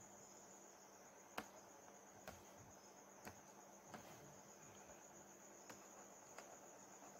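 Near silence: room tone with a faint steady high-pitched whine and a few soft clicks, the sharpest about one and a half seconds in.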